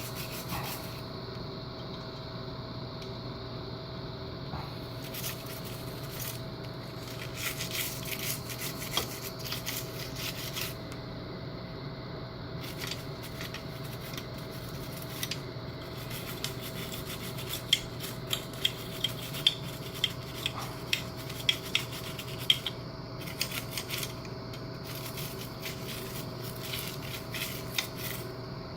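An old toothbrush scrubbing wet, soapy plastic model-kit runner parts in short, scratchy strokes, washing off mold-release residue. Around the middle comes a run of sharper, brisk strokes, about two a second.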